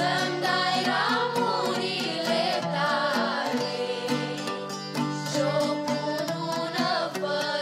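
Moldovan folk music: a pan flute (nai) plays a wavering, ornamented melody over a strummed cobza.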